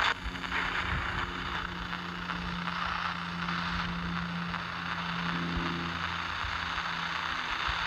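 Spirit box (Panabox) scanning: a steady wash of choppy, ratcheting radio static with a low steady hum underneath.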